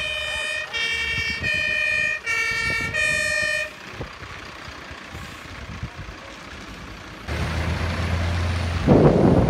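German fire engine two-tone horn (Martinshorn) sounding, alternating a high and a low note about every three-quarters of a second, and stopping about three and a half seconds in. A steady low rumble follows near the end, with a louder burst of noise shortly before the end.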